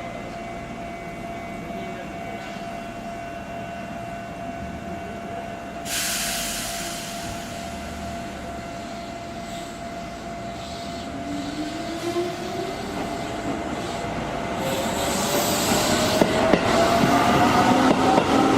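Keihan electric train pulling away, its traction motors giving a whine that rises steadily in pitch as it speeds up. There is a sudden burst of hiss about six seconds in.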